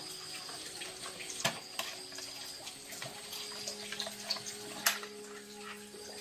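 Running water, with two sharp knocks.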